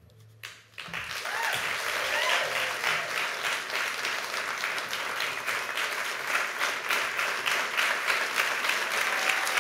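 Audience applauding, the clapping starting about a second in and quickly building to a steady level.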